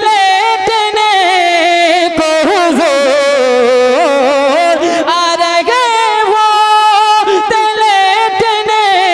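A young man's voice singing a naat into a microphone, amplified. He holds long, ornamented notes that slide and waver in pitch.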